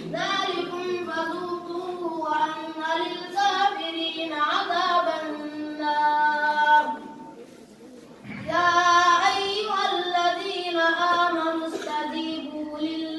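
A child's voice singing unaccompanied in long held notes. It breaks off for about a second midway, then goes on.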